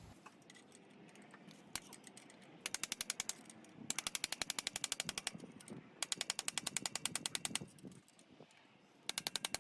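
Rapid metallic tapping in four bursts, about eleven taps a second, as a screwdriver is driven against the notches of a 4WD front hub's spindle bearing ring to tighten it.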